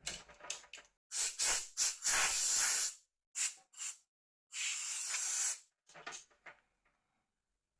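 Plastic wrapping rustling and crinkling in several hiss-like bursts, the longest two each about a second or two long, then a few light ticks near the end.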